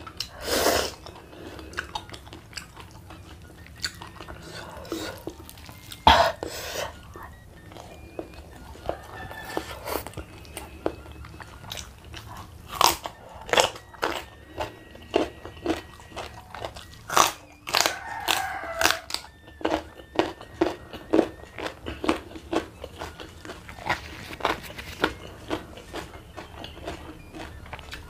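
Close-up eating: a person crunching and chewing raw leafy vegetable stalks and fried fish, with many short, sharp crunches scattered through the chewing.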